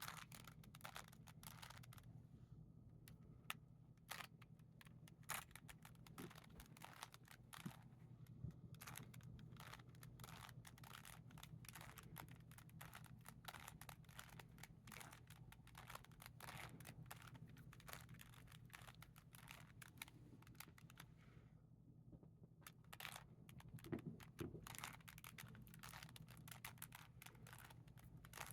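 Faint, rapid clicking and clacking of a Rubik's Cube's plastic layers being turned by hand, in quick runs of turns with a couple of short pauses.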